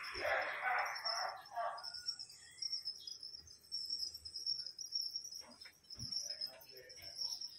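Insects chirring in a steady high pulsing trill. A louder noisy sound fills the first two seconds, and a low thump comes about six seconds in.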